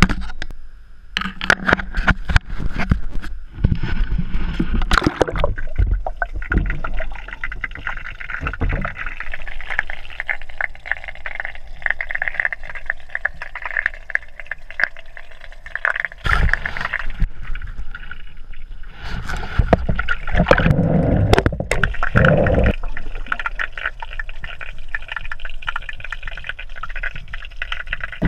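Pool water sloshing and gurgling around a camera as it goes in and out of the water and moves underwater, with frequent knocks and clicks of handling and a few louder rushes of churned water.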